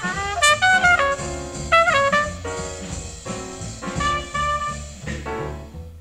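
Bebop quintet of alto saxophone, trumpet, piano, bass and drums: fast horn runs over walking bass and drums. About two and a half seconds in, the playing turns into notes hammered over and over on one pitch, as the trumpet and bass pound on D. This is a take breaking down after a half-step key change the piano missed, and the music trails off near the end.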